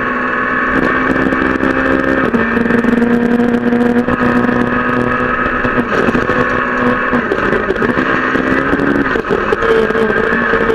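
Peugeot 208 R2 rally car's four-cylinder engine under hard driving, heard from inside the cockpit, its note stepping down and back up several times as gears change. Gravel clicks and rattles against the car throughout.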